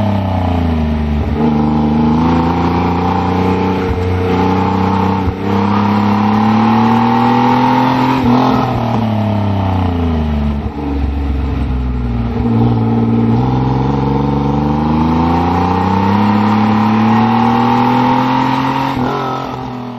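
1988 Pontiac Fiero Formula's 2.8-litre V6 heard from beside the rear licence plate, revving up and falling off again and again through an autocross run, with two brief dips in level about five and eleven seconds in; the sound fades out near the end.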